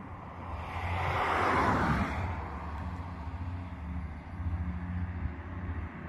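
Distant, steady drone of an Avro Lancaster's four Rolls-Royce Merlin engines as the bomber approaches low. A broad rushing swell rises and fades about one to two seconds in.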